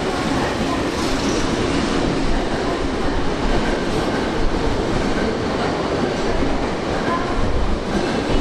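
Yurakucho Line subway train running in an underground station: a steady, loud rumble of wheels on rail with some clickety-clack.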